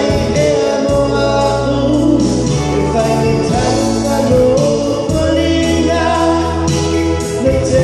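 A man singing a slow song into a handheld microphone, over instrumental accompaniment with long-held bass notes.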